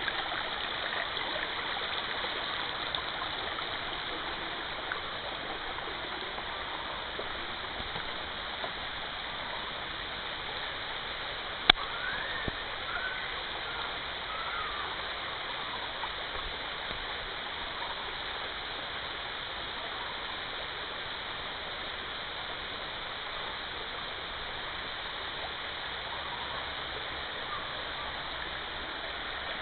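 Shallow forest stream running over rocks, a steady rush of water. A single sharp click about twelve seconds in, followed by a few faint high glides.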